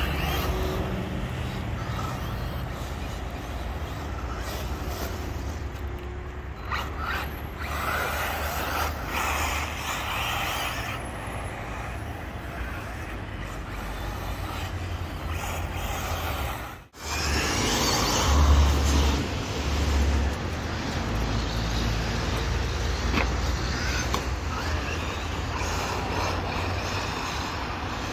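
1/8-scale RC buggies, a Kyosho MP9 nitro and a Hobao electric, running laps on a dirt track. The engine buzz comes and goes as the cars pass, over a steady low rumble. The sound cuts out for a moment about 17 seconds in.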